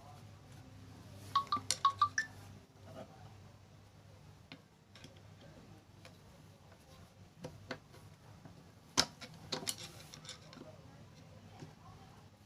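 Small metal parts and a tool clinking and clicking during sewing machine repair work: a quick run of about six sharp clinks near the start, then scattered single clicks, the loudest about three quarters of the way through, over a low steady hum.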